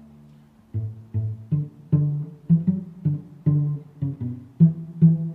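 Background music: a steady run of short, low plucked string notes, about two a second, after a soft held low note at the start.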